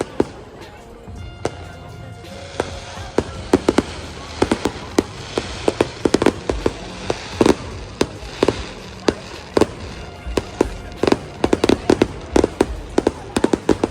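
Fireworks going off: a dense, irregular string of sharp bangs and crackles, several a second.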